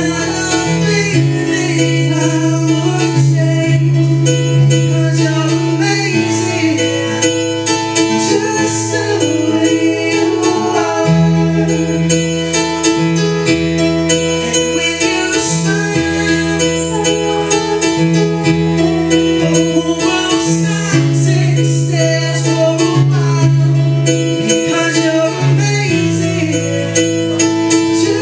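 Amplified live singing by a small mixed vocal group, the voices taking turns and joining in harmony, over instrumental accompaniment whose held bass chords change every few seconds.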